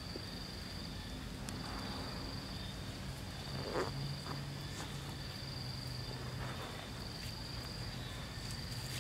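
Insects droning in a steady, high, even tone over a low steady hum, with one short noise about four seconds in.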